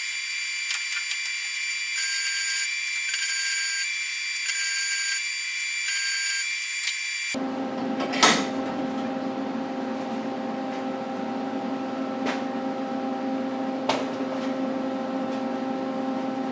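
Welding a steel bushing onto a tree step: a welder's arc cuts in and out in four short bursts of about half a second each. About seven seconds in, the sound switches suddenly to a steady machine hum with a few sharp clicks.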